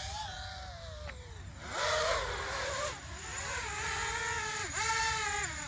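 FPV racing quadcopter's T-Motor BMS Raptor V2 brushless motors and propellers whining, the pitch rising and falling with the throttle and dropping sharply about three times as the throttle is chopped and punched again.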